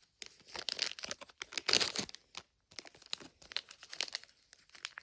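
Thin plastic wrapper crinkling and tearing as a small packaged toy is opened by hand, in quick irregular crackles that are loudest about two seconds in.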